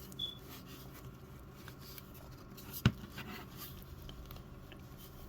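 Faint handling of a plastic action figure, small rubs and taps, with one sharp click about three seconds in.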